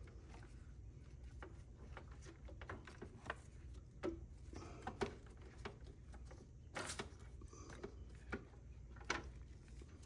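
Faint scattered clicks and rubbing as a plastic water line is handled at a refrigerator's water inlet valve, with a few sharper clicks in the second half, over a low steady hum.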